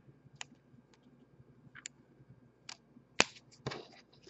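Stiff chrome baseball cards being flipped through by hand, giving light scattered clicks and flicks as cards slide off the stack. A sharp snap comes a little past three seconds in, followed by a brief rustle.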